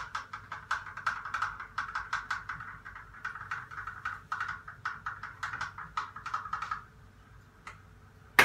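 Coffee grounds and water being stirred in an inverted AeroPress, the stirrer clicking against the chamber about five times a second for roughly seven seconds, then stopping. One sharp knock near the end.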